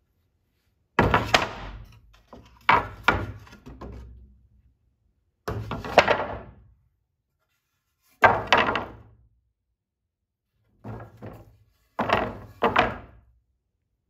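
2x4 lumber boards being dropped and knocked together onto a stack: about six bursts of hollow wooden knocks, each of one to three hits, with short gaps of quiet between.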